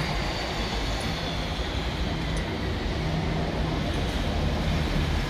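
City street traffic noise with a steady low engine hum.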